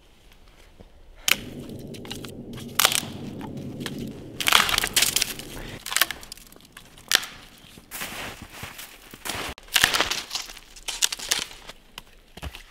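A run of crunching and sharp cracks, as of something brittle being crushed or broken, over a low steady hum that stops about halfway through.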